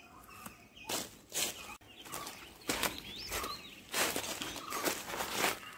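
Footsteps crunching through dry fallen leaves, about seven irregular steps, with small birds chirping faintly behind.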